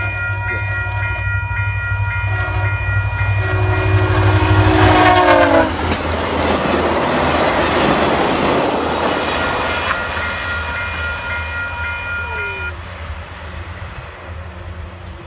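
VIA Rail passenger train passing at speed, its locomotive horn sounding as it approaches. The horn's pitch drops as the locomotive goes by about five seconds in, then comes the loud rush of the passing coaches, fading as the train moves away.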